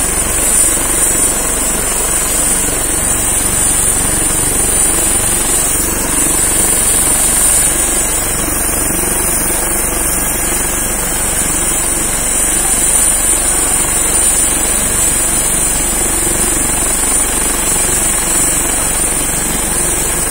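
Helicopter idling on the ground with its main rotor turning: a steady, loud high-pitched turbine whine over a dense, pulsing rotor rumble.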